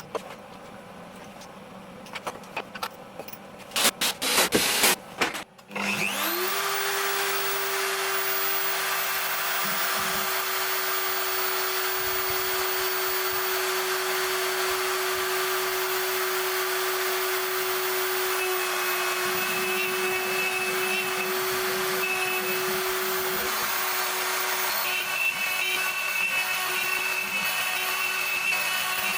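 CNC router spindle spinning up about six seconds in after a few clicks, then running at a steady high whine over a strong rushing hiss; near the end a higher tone joins as the load changes.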